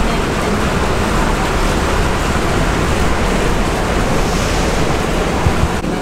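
Steady rushing splash of water pouring from a stone wall fountain's spouts into its basin.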